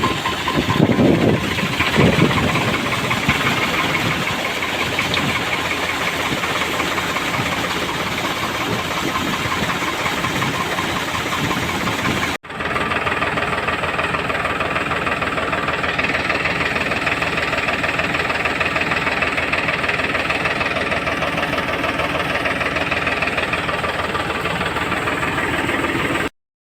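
A machine running steadily with a dense, even mechanical noise. It breaks off for an instant about twelve seconds in and cuts off suddenly near the end.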